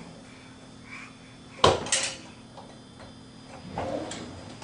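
Dishes being unloaded from a dishwasher: two sharp clinks in quick succession about a second and a half in, then softer handling noises near the end.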